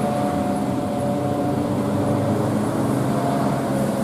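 Bus engine running steadily, a constant drone with a few steady tones.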